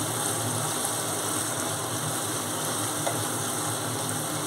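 Thick curry gravy sizzling steadily in a frying pan over a gas flame as it is stirred.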